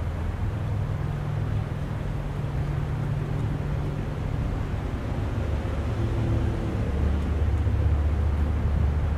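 Low rumble of a running engine, with a deeper tone growing stronger about seven seconds in.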